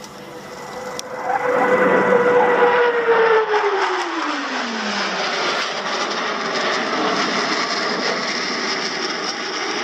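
Blue Angels F/A-18 Hornet jets of the Diamond formation passing by: the jet noise swells about a second in, and a whine falls steeply in pitch between about three and five seconds in as the jets go past, leaving a steady roar.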